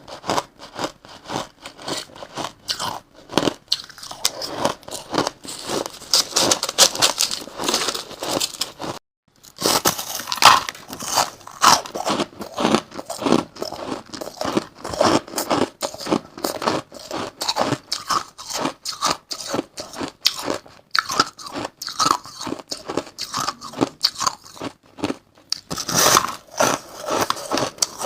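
Crushed ice being bitten and chewed close to the microphone: a dense run of rapid, crisp crunches, with a short break about nine seconds in.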